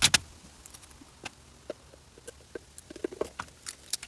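Handling of adhesive tape and a plastic cup and container: scattered sharp clicks and crinkles, loudest at the start and bunching up near the end.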